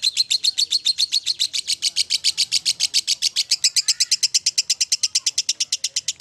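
Lovebird ngekek: a long, unbroken chatter of sharp, high-pitched notes, about a dozen a second.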